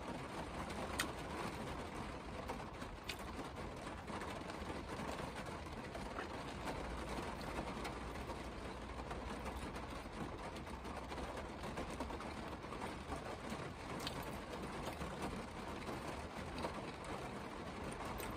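Chewing a crispy fried chicken sandwich, with rain pattering on the car body, heard from inside the car's cabin; a few faint sharp ticks.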